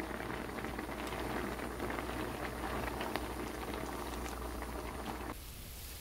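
Pot of red kimchi stew at a rolling boil, bubbling and popping densely. About five seconds in, the bubbling drops off suddenly to a fainter hiss.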